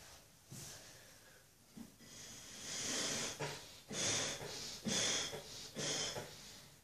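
Breath blown hard through a homemade foam blower, a cut plastic bottle with a sock soaked in shampoo and water over its open end, pushing out a snake of foam. One long blow comes about two seconds in, then three shorter puffs about a second apart.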